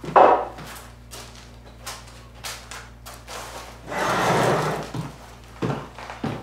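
A kitchen chair dragged across the floor as someone pulls it out and sits down at the table, a noisy scrape lasting about a second near the middle, with a short loud scuff at the start and small clicks and knocks around it.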